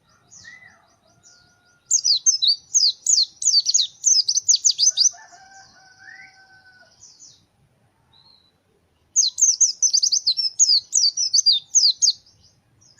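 White-eye (pleci) singing: two bursts of rapid, high twittering notes, the first about two seconds in and the second about nine seconds in, each lasting around three seconds. A fainter, lower whistled call sounds briefly near the start and again around the middle.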